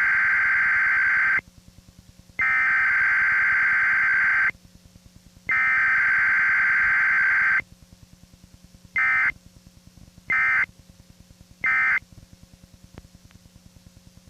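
Emergency Alert System SAME data tones, a harsh electronic screech. The digital header is sent three times in bursts of about two seconds each, followed by three short end-of-message bursts, as part of an EAS Required Weekly Test.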